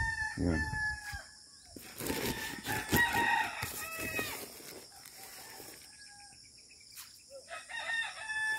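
A rooster crowing three times, each crow a held call of about a second that drops off at the end: one at the start, one about three seconds in and one near the end.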